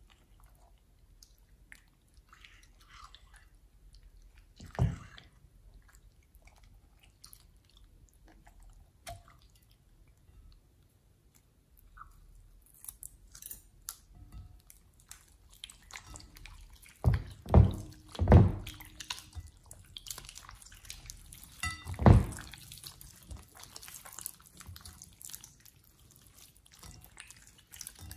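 Thick slime being stirred with a spatula and then pressed and squeezed by hands in a glass bowl, giving wet, sticky squelching and clicking. The sounds are sparse at first, then grow busier in the second half with several loud squelches.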